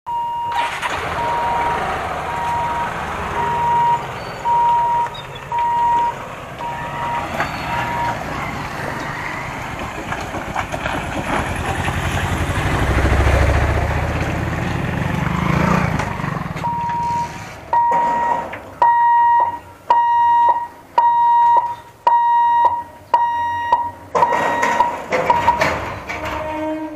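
Level-crossing warning hooter beeping at one steady pitch, about once a second, while the barriers are lowered. The beeps are faint at first and loud near the end. In the middle, a motorcycle's engine rumbles past over the crossing.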